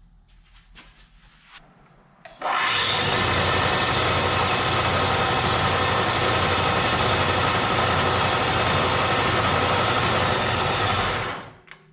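Milling machine spindle running: it starts abruptly about two seconds in, runs steadily with a low hum and a high whine, then is switched off and winds down near the end.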